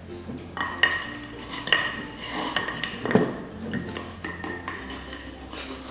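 A measuring cup clinks and scrapes against a sugar canister while sugar is scooped out, with a few sharp knocks that ring briefly.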